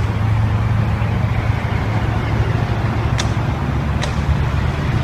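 Steady low rumble of a motor vehicle engine running close by, with two faint clicks about three and four seconds in.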